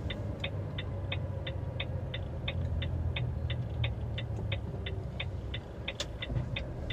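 Turn-signal indicator ticking evenly, about three clicks a second, inside the cab of a Volvo truck, over the low rumble of the running diesel engine.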